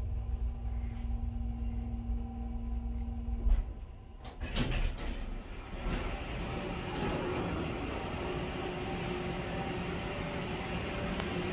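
Elevator car running with a steady low hum and a held tone, stopping with a thump about three and a half seconds in; the sliding doors then open with a few clicks, and a steady hiss of background noise follows.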